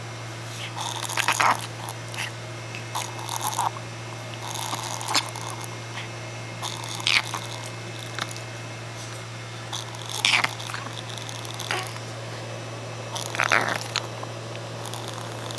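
A dog's noisy, laboured breathing from a breathing problem: short noisy breaths at irregular intervals of about two to three seconds, over a steady low hum.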